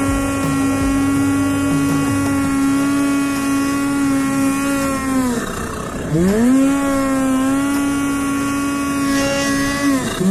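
Snowmobile engine held at steady high revs under way, with a rushing noise underneath. About five and a half seconds in the throttle is let off and the revs drop and climb back, then dip and rise again near the end.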